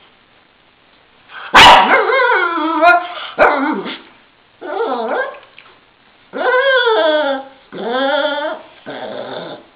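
Shih-tzu 'talking' to a broom: about six drawn-out, pitch-bending vocal calls in a row, starting after a second of quiet, the first one the longest and loudest.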